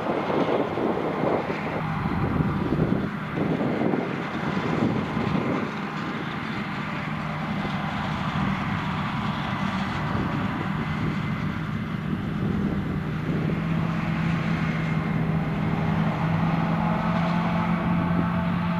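Diesel engine of heavy farm machinery running steadily, its hum rising slightly in pitch over the second half. Wind buffets the microphone during the first few seconds.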